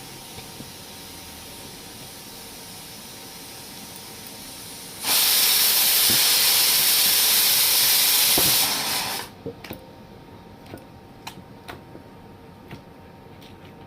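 Pressure cooker venting steam in a loud hiss that starts abruptly about five seconds in, holds steady for about four seconds, then cuts off. Light clicks and knocks of kitchen utensils follow.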